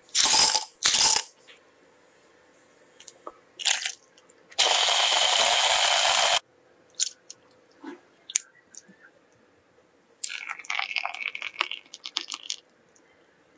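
Ice and mango pieces clattering into a plastic chopper bowl in two quick bursts, then an electric hand blender's chopper attachment running for about two seconds, crushing the ice into a mango slush, and cutting off sharply. Near the end comes a run of crackling, crunchy clicks.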